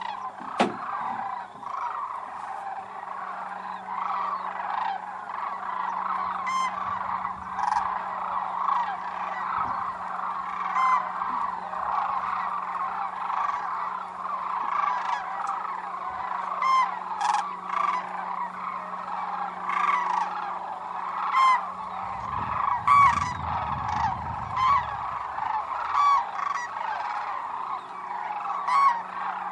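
A large flock of sandhill cranes calling: a continuous chorus of overlapping calls, with many nearer individual calls standing out above it. A low rumble comes in about three quarters of the way through.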